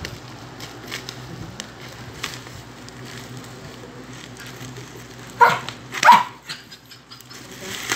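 A dog barks twice in quick succession past the middle, the loudest sounds here, over faint snips of scissors cutting a plastic mailer bag.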